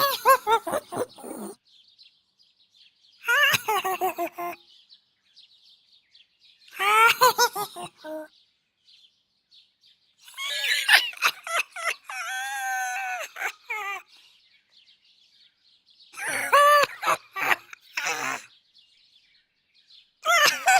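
Cute robot-droid laughing vocalizations from the 'Bleep' sound library: six separate takes of chirpy, warbling electronic bleeps, spaced a few seconds apart. The middle take is longer and ends in a steadier, wavering tone.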